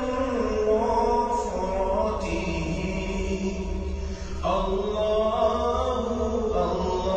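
Background vocal chant music: a voice holding long, slowly wavering notes over a steady low drone, with a new phrase beginning about four seconds in.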